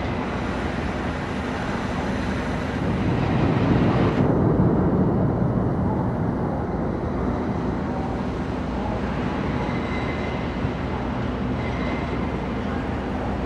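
GO Transit commuter train passing through the station, a steady rumble of wheels on rail that swells about four seconds in.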